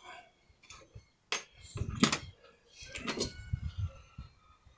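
Several knocks and clatters of objects being handled, with the loudest knock about two seconds in and a quick cluster about a second later.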